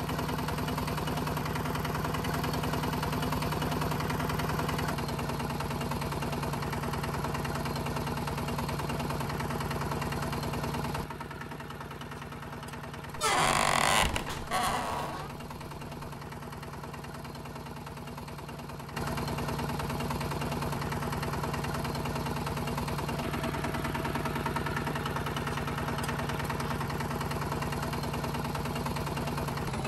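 Small motor of a home-built miniature tractor running with a steady hum. It drops out for several seconds around the middle, when a brief loud noisy burst is heard, and then resumes.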